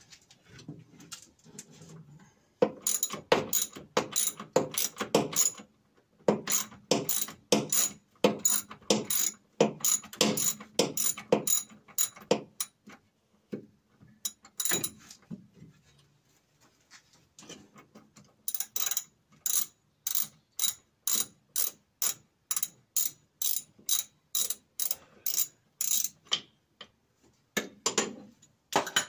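Ratchet clicking in quick runs as a 17 mm nut on an engine mount is worked loose. The runs come in several bursts with short pauses between them, at roughly two to three clicks a second.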